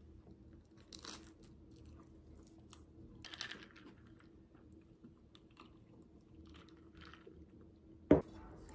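Close-up chewing of a whole-wheat sandwich with lettuce, a few soft crunches. Shortly before the end, one sharp knock as a glass of iced coffee is set down on the table.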